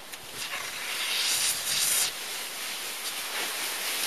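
Snow hissing and scraping under a person glissading down a steep snow slope in a sitting slide, growing louder about a second in as the slider nears.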